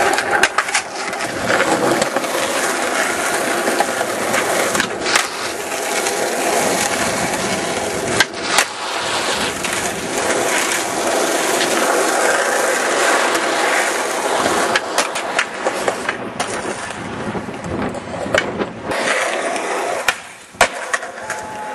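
Skateboard wheels rolling steadily over the ground, with a few sharp clacks of the board: one about five seconds in, two close together about eight seconds in, and one near the end.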